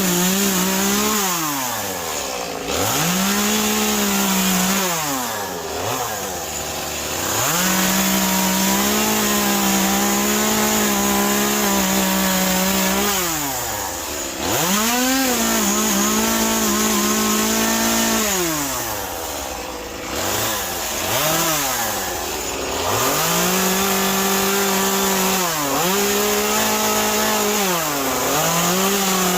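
Chainsaw cutting into a wet Western red cedar stump. The engine is held at full throttle in short cuts and falls back toward idle between them, rising and dropping about eight times.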